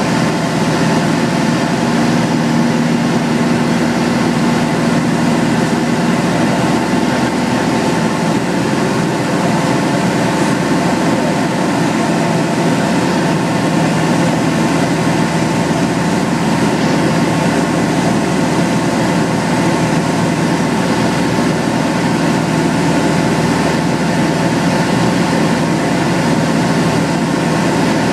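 Van's RV-9 light aircraft's piston engine and propeller running at a steady setting: a loud, even drone with steady tones through it, one hum standing out for several seconds from about two seconds in.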